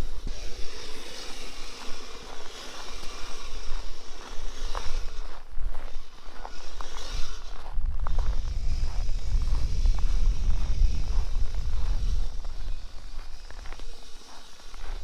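Kyosho Blizzard radio-controlled snowcat driving through snow, its tracks scraping and crunching, with a heavy wind rumble on the microphone in the middle.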